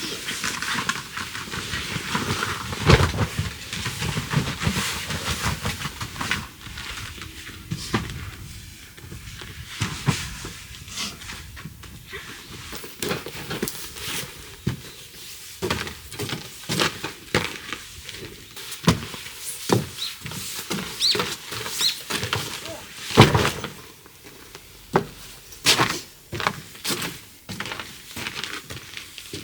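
Irregular knocks, clicks and clatters, some louder and sharper than others, with a couple of brief high squeaks about two-thirds of the way through.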